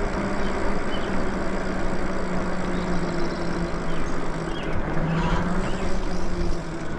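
Electric bike on the move: a steady hum from its motor and tyres that sinks a little in pitch as the bike slows, over wind rushing on the microphone.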